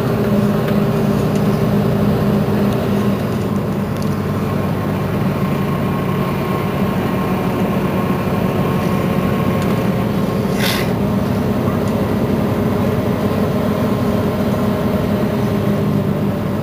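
Mercedes-Benz Citaro C2 city bus engine idling steadily while the bus stands still, with a short hiss about ten and a half seconds in.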